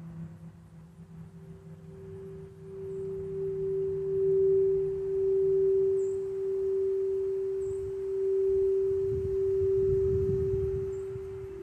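Quartz crystal singing bowl ringing one steady, pure tone that swells and ebbs several times.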